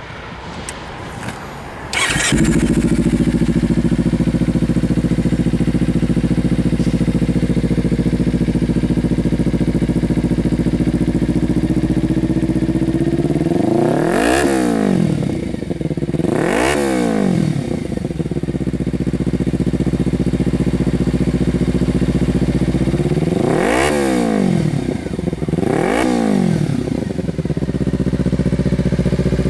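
Kawasaki Ninja 300's parallel-twin engine breathing through a DG Performance V2 slip-on exhaust: it starts up and catches about two seconds in, then idles steadily. Four quick throttle blips rise and fall back to idle, two about halfway through and two more near the end.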